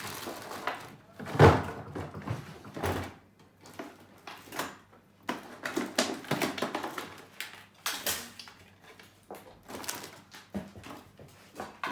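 Irregular knocks, clatter and rustling of someone rummaging for clamps among tools, with one loud knock about one and a half seconds in.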